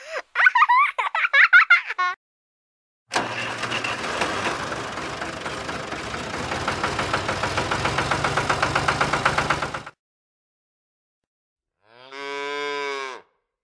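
A brief, high, warbling sound effect, then a tractor engine running steadily for about seven seconds with a rapid even pulse. After a short pause, a cow moos once.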